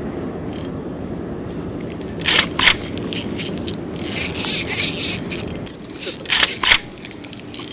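Spinning reel being cranked in a steady retrieve, a continuous gear whir. It is broken by two pairs of sharp clicks, one pair about two seconds in and another past six seconds.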